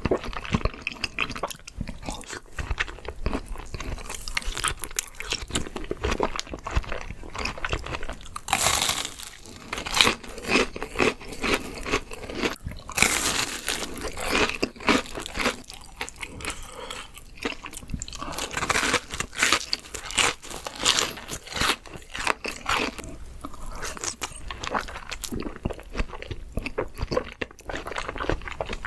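Close-miked eating of crispy fried shrimp: irregular crunching bites and chewing, with several clusters of louder crunches.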